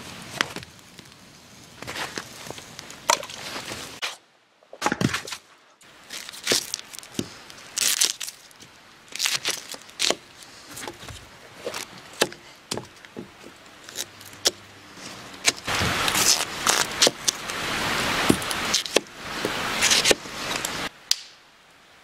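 Knife chopping vegetables on a split-wood cutting board: irregular sharp taps of the blade striking the wood, with a denser stretch of rustling near the end.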